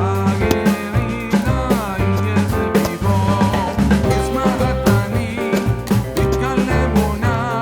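Background music: an upbeat song with drums, guitar and singing.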